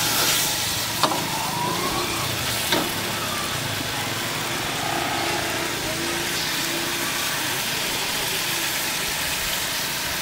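Chicken masala sizzling and frying in a hot iron kadai, a steady sizzle, with a metal ladle clacking against the pan twice in the first three seconds.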